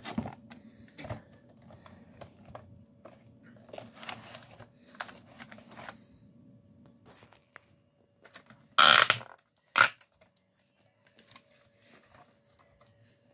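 Clear plastic packaging being handled and pulled off a model locomotive: scattered crinkles and clicks, then two loud short rustles about nine and ten seconds in.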